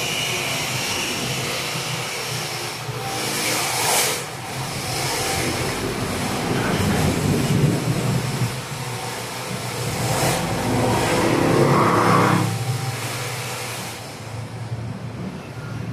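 A steady rumbling background noise, with a knock about four seconds in and another about ten seconds in as a computer monitor is handled and hung on a wall bracket.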